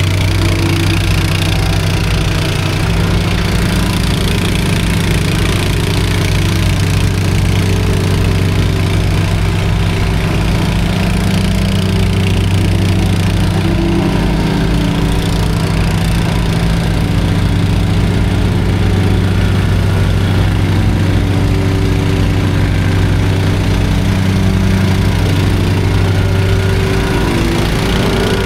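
Engine of a piece of paving or excavation machinery running steadily at a constant speed, with a low, even throb.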